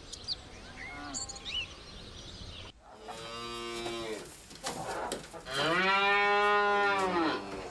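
Domestic cow mooing twice, two long calls, the second louder and longer.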